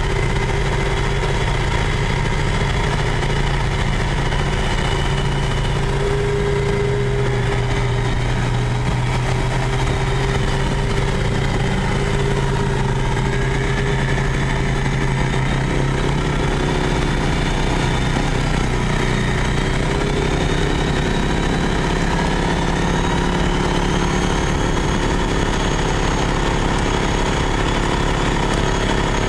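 Mud ATV's engine running steadily as the machine is ridden, heard from on board, its pitch drifting only a little with no hard revving or stops.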